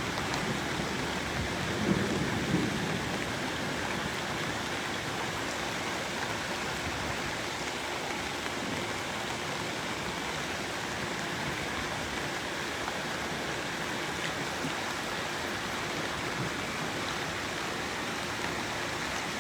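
Steady, even rush of water from the flash-flooded creek running high and fast, a constant hiss with no breaks. Two brief bumps about two seconds in.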